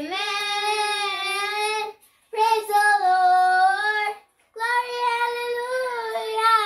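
A young girl singing a children's praise chorus unaccompanied, in three long held phrases with short pauses between them.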